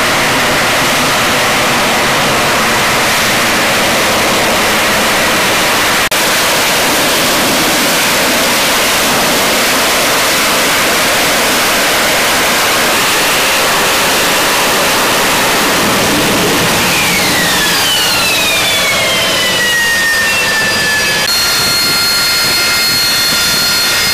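AV-8B Harrier II's Rolls-Royce Pegasus turbofan jet engine giving a loud, steady roar. Near the end a whine falls in pitch. After a sudden change there is a steady high-pitched whine from the engine close by.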